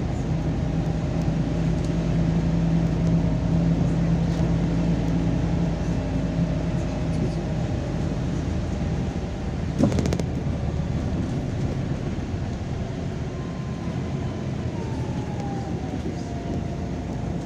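MAZ-203 city bus heard from inside while moving: the engine running with road noise, a single sharp knock about ten seconds in, and a whine that falls and then rises again near the end.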